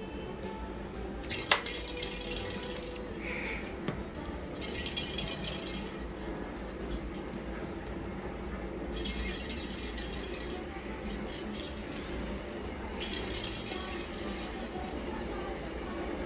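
Small plastic cat toy ball with a jingle bell inside rattling as it rolls across a hard floor, in four separate bursts of a second or two each, with a sharp click near the start of the first.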